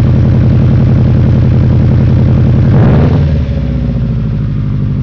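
1998 Subaru WRX's turbocharged flat-four engine running at idle through a 3-inch turbo-back exhaust, with a brief rise in revs a little past the middle before it settles again. The engine has a spun bearing, which the owner says gives it a rattle under the exhaust note.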